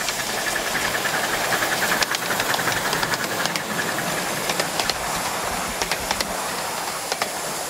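Miniature steam locomotive passing close by, hissing steam with a fast beat in the first few seconds, then the clicking of its riding cars' wheels on the track as the train goes past.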